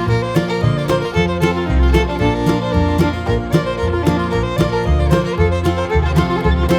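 Background bluegrass music, fiddle over guitar and bass, with a steady beat.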